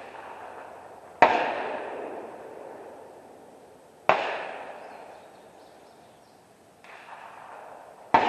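Rifle shots at an outdoor range: three sharp reports about three to four seconds apart, the last near the end, each trailing off in a long echo, with a fainter report in between.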